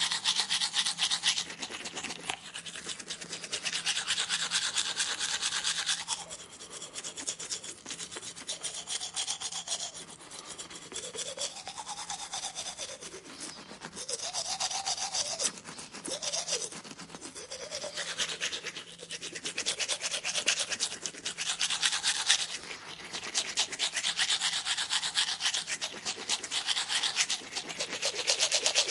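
Rapid scrubbing and scraping of a dental tool working on teeth, coming in stretches of a few seconds with quieter gaps, where faint wavering tones are heard.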